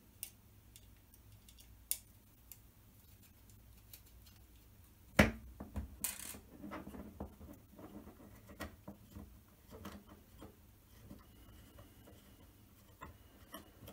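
Small Allen key working the tiny screws out of a controller board's cover plate: light scratching and clicking of metal on metal, with small parts set down on a tabletop. The loudest sound is a single sharp click about five seconds in, followed by a busier run of small ticks.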